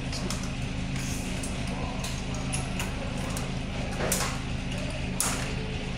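Sheet-metal control box and wire bundle of a split air-conditioner's indoor unit being handled, giving scattered clicks and rustles, the loudest about four and five seconds in, over a steady low hum.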